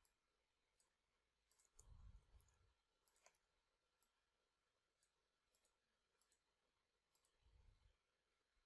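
Near silence, with faint computer mouse clicks at irregular intervals and two soft low thumps.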